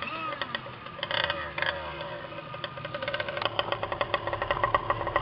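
Small two-stroke BZM petrol engine of a radio-controlled race boat running, heard close up from on board, with water splashing against the hull. The firing grows louder and quicker from about three and a half seconds in.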